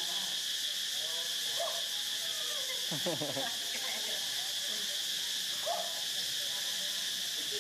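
A steady high-pitched insect drone, crickets or cicadas, with a few faint short calls or voice sounds over it, one sliding down in pitch about three seconds in.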